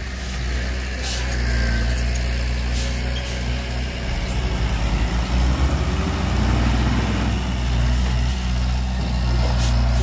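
Heavy diesel engine of earth-moving equipment running steadily, with a few faint sharp clicks over it.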